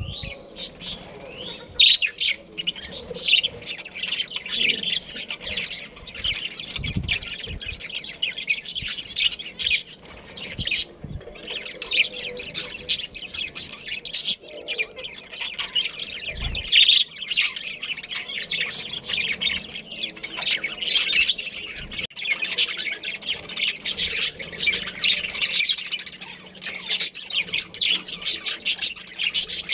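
Budgerigars chattering: a dense, continuous stream of rapid high chirps and squawks from several birds.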